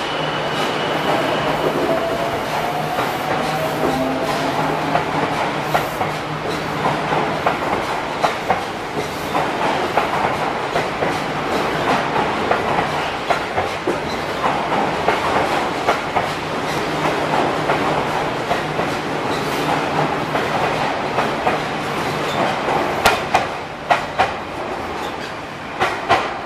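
Odakyu Romancecar electric train running along an underground station platform: a steady rumble of wheels on rail, with a motor whine rising slightly in pitch in the first few seconds and sharp clicks of wheels over rail joints, in a cluster near the end.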